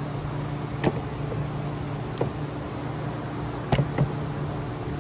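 A few sharp metallic clicks and taps of small tools and parts as a carburetor is taken apart, over a steady background hum.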